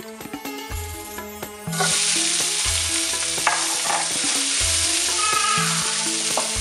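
Green vegetables sizzling in a hot pan, starting suddenly about two seconds in and holding steady, over background music with a regular bass beat.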